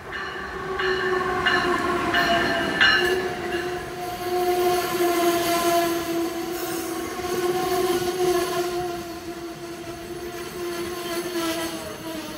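Amtrak ACS-64 electric locomotive passing at speed at the head of a passenger train, then the passenger cars rushing by. A steady tone sounds throughout and drops slightly in pitch about three seconds in as the locomotive goes by, with evenly spaced clicks in the first few seconds.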